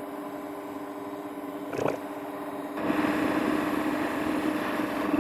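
Variable speed mini lathe's 550-watt DC motor and gearing running with a steady whine while a high-speed steel tool turns a cold rolled steel bar at about 250 RPM. About three seconds in, a rougher, louder cutting noise comes in as the tool takes a deeper bite, near 20 thou.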